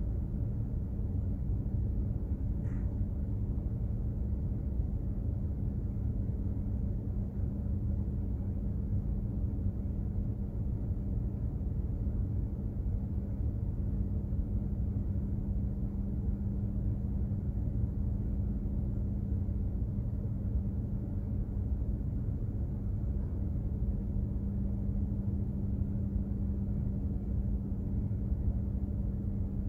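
Steady rumble of a container ship's engines and machinery heard on board, with a constant hum running underneath.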